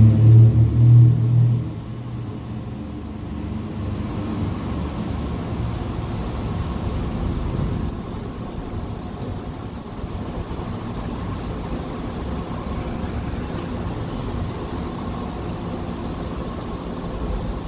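A motor vehicle's engine rumbles loudly for the first couple of seconds, then drops away sharply about two seconds in, leaving a steady low hum of street traffic.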